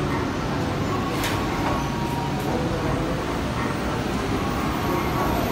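Double-decker Shinkansen bullet train moving slowly along the platform: a steady low rumble and hiss of the train gliding past, with one sharp click about a second in.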